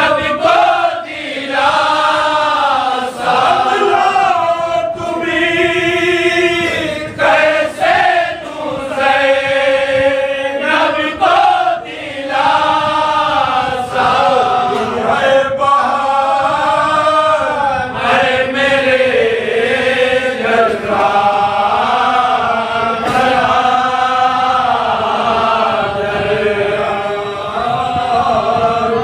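A group of men's voices chanting a marsiya, an Urdu elegy of mourning, together in a slow, melodic recitation that runs on without a break.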